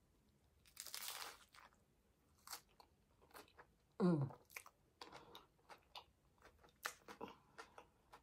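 Crisp hard corn taco shell crunching under a bite about a second in, then chewing with small crunches and wet mouth clicks. About four seconds in, a short vocal sound from the eater falls in pitch.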